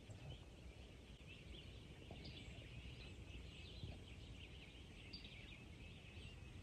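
Near silence of a still lake at dawn, with faint distant birds chirping and a low rumble underneath.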